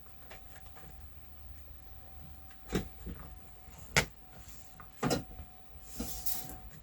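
A few short, sharp knocks and taps, three of them spaced about a second apart, then a brief rustle near the end: the speaker cabinet and vinyl wrap being handled on a work surface.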